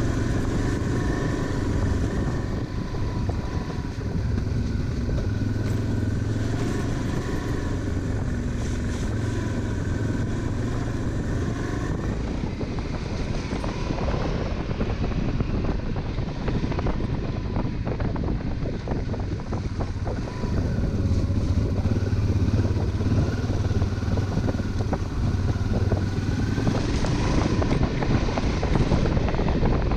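Honda Transalp 600's V-twin engine running steadily as the motorcycle rides a rough dirt track, heard from on board, with rumble and rattle from the uneven ground. It gets a little louder about twenty seconds in.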